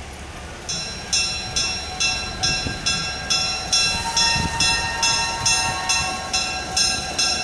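Diesel switcher locomotive's bell ringing at an even pace, about two strokes a second, starting just under a second in.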